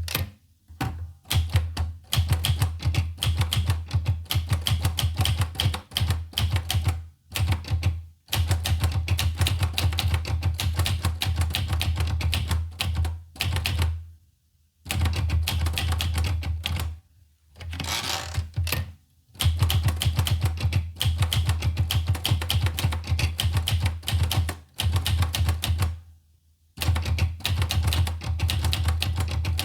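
Olivetti Lettera 25 portable manual typewriter being typed on: fast runs of sharp key strikes, broken by a few short pauses.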